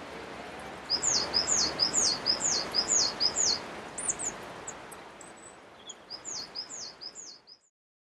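A songbird singing a phrase of high two-note calls repeated about twice a second, heard twice, over a faint steady outdoor hiss.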